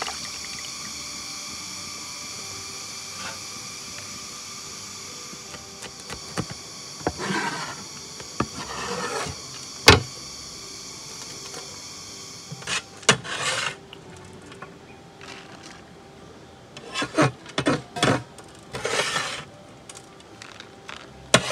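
Short scrapes and a sharp clink from a steel plate as chopped green chillies are pushed around on it and slid onto a banana leaf. Under them, a steady high-pitched drone stops abruptly about twelve seconds in.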